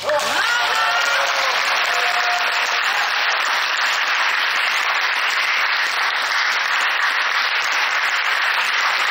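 Audience applauding steadily after a soprano's song ends, with a few brief pitched calls over the clapping in the first two seconds.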